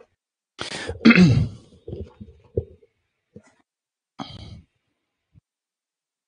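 A man clearing his throat, a short voiced burst with a falling pitch about a second in, followed by a few small clicks and a brief breathy noise. Between the sounds the audio drops to dead silence.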